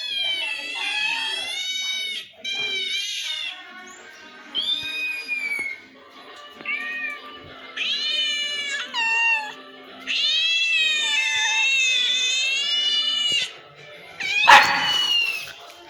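Cat meowing over and over, a string of high-pitched calls, mostly short, with one long drawn-out meow about ten seconds in. A loud harsh burst comes near the end.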